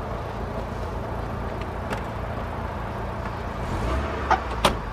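Low steady rumble of a car idling. Near the end come two sharp knocks about half a second apart, the sound of car doors being shut.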